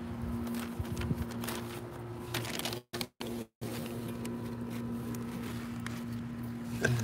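Scattered light clicks and rustles as a plastic Easter egg is handled and tucked between a wooden fence and woven wicker furniture, over a steady low hum. The sound cuts out twice briefly about three seconds in.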